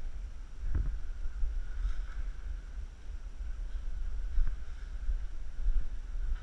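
Low, buffeting rumble of wind and handling noise on an action camera's microphone, with a couple of soft knocks.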